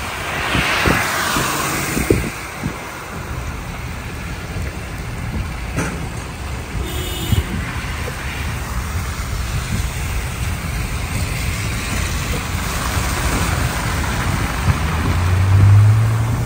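Car driving along a rain-flooded street, with steady tyre and road noise and a hiss of water. There is a rush of spray in the first couple of seconds and a louder low hum for about a second near the end.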